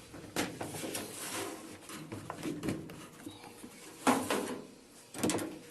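Knocking and scraping of a top-load washing machine's suspension rod and its spring housing being handled, with the sharpest knock about four seconds in.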